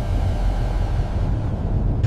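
Steady low rumble with a hiss spread above it.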